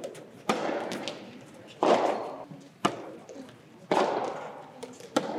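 Soft tennis rally: a rubber soft tennis ball struck back and forth by rackets, five sharp pops about a second apart, each echoing in a large indoor hall.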